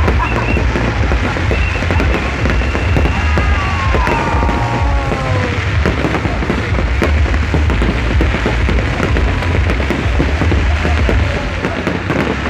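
Aerial fireworks display: shells bursting one after another, a dense, continuous crackling over a heavy low booming.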